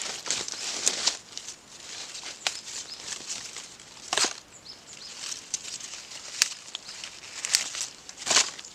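Hands rustling through dry leaf litter while picking up fallen rhododendron blossoms: irregular crackles and brushes of dry leaves and petals, louder about four seconds in and again near the end.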